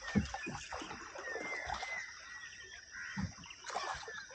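Waterbirds calling in short chirps, with a few low knocks from the rowboat's oars.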